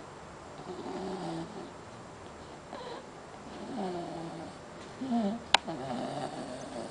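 A sleeping pet snoring: a run of uneven, wavering snores about one every second, with one sharp click a little past halfway.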